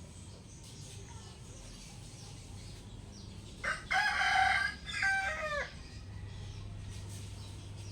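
A rooster crowing once, a drawn-out call of about two seconds in the middle, in two parts with the second falling in pitch at the end.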